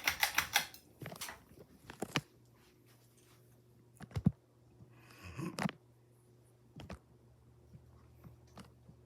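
Hampton Bay Carriage House ceiling fan motor running with a steady low hum. Scattered clicks, knocks and crackly rustles sound over it, the loudest a sharp knock about four seconds in.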